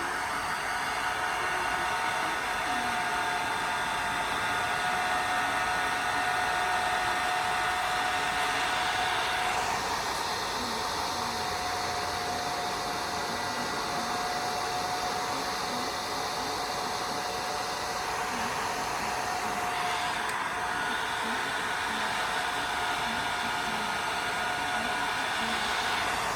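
A hair dryer running steadily, a blowing hiss with a whine through it; the tone of the hiss shifts about a third of the way in and again about two-thirds of the way through.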